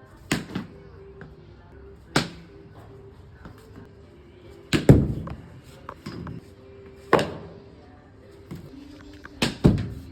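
Cricket bat striking the ball in batting practice: sharp single knocks every two seconds or so, with two in quick succession near the end. Background music plays underneath.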